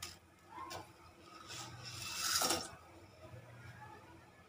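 A utensil scraping and rubbing against a steel saucepan as a block of instant noodles is broken up and stirred in boiling water, loudest about two seconds in.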